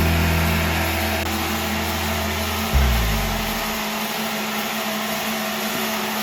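A steady machine whir, like a power tool's motor running, under background music whose held low notes fade out about halfway through.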